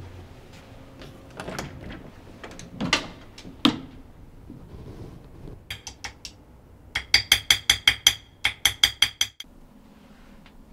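Small engraver's hammer tapping a steel chisel into a kitchen knife blade: a few light taps, then two quick runs of sharp, ringing metal-on-metal taps, about nine a second, in the second half. Earlier, two dull knocks.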